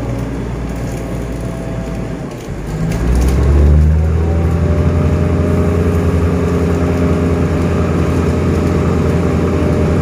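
Diesel passenger train running, heard from a carriage window: a steady low engine drone with the rumble of the carriages on the track. The drone dips briefly, then comes back louder about three seconds in and holds steady.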